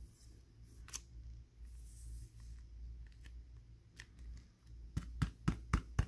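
A trading card slid into a rigid plastic toploader and handled. There is one sharp click about a second in and a quick run of sharp plastic clicks near the end.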